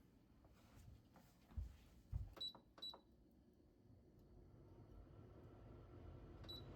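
Near silence, broken by a few quiet handling sounds: two soft low thumps, then three short, light, high-pitched clinks, the last near the end.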